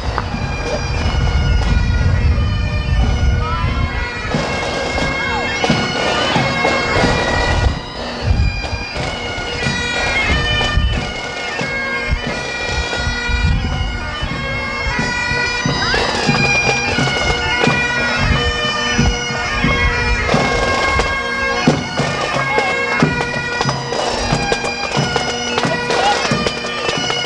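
Pipe band playing: bagpipes sound a tune over their steady drones, with drum beats underneath.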